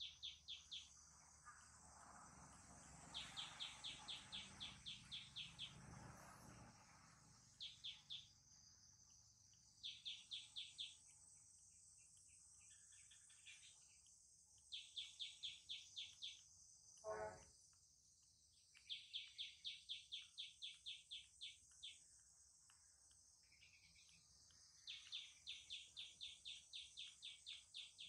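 Faint insect chirping: trains of quick, even, high pulses every few seconds over a steady high insect hum. A brief pitched squeak about two-thirds of the way in.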